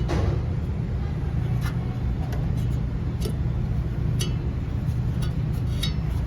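Beer refrigerator running with a steady low hum and a few scattered, irregular ticks. The noise comes from a failing fan motor that sticks and no longer turns freely, which risks overheating the compressor.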